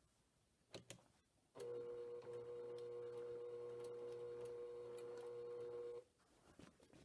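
Brother PQ1500SL straight-stitch sewing machine running at a steady speed, stitching through a quilt in free-motion quilting. Its motor gives a steady hum that starts abruptly and cuts off about four and a half seconds later. A single click comes shortly before it starts.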